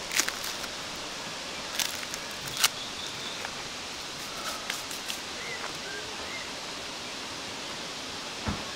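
Steel shashlik skewers clinking a few times as grilled lamb is pulled off them onto a board, over a steady outdoor hiss. A few lighter ticks follow, and there is a soft thump near the end.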